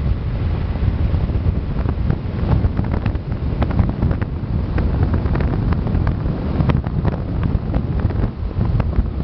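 Wind buffeting the microphone on a motorboat under way: a steady, heavy low rumble with frequent crackles.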